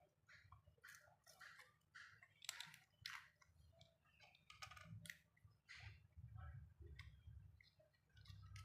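Faint, irregular clicks and scrapes of small plastic parts being handled and pressed together as a replacement speaker is fitted into a keypad mobile phone.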